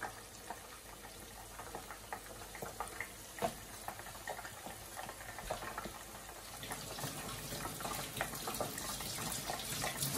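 Pork meatballs deep-frying in a pot of hot oil: steady bubbling with many small crackles, growing a little louder toward the end.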